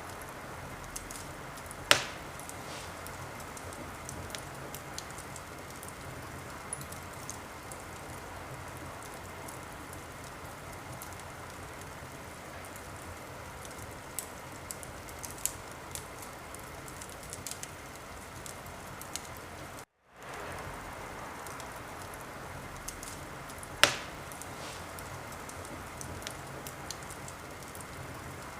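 Wood fire crackling in a fireplace: a steady hiss with scattered small crackles and a sharp, loud pop about two seconds in and again near the end. The sound cuts out for a moment about two-thirds of the way through and fades back in.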